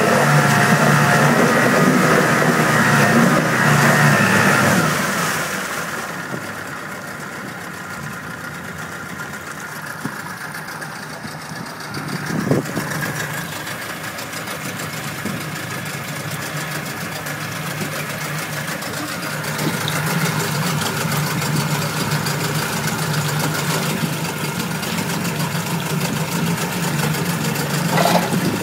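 2005 Tohatsu 9.9 hp outboard motor running, higher and louder at first, then dropping back to a steady idle about five seconds in. There is a single knock about twelve seconds in.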